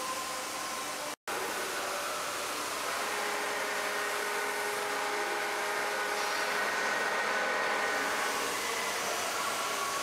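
Steady factory-hall background noise: an even hiss with a faint hum of several steady machine tones, briefly cut out about a second in.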